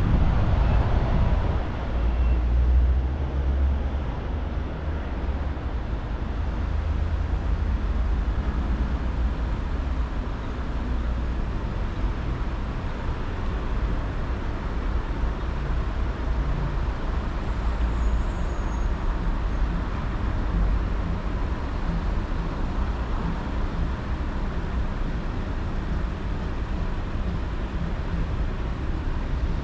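Car driving along a road: a steady low rumble of engine and tyres with road noise, unchanging throughout.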